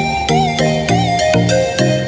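Background music: an electronic track with chords pulsing about twice a second under a wavering high melody.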